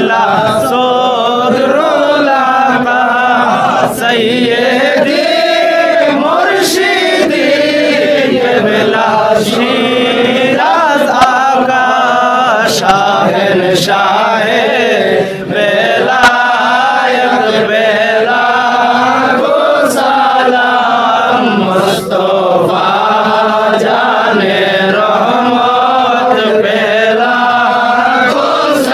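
Group of men chanting together in a slow, continuous devotional chant, with short pauses for breath about 4, 15 and 22 seconds in.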